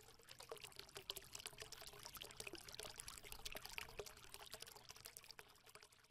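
Faint, irregular crackling and trickling, with a faint steady hum underneath.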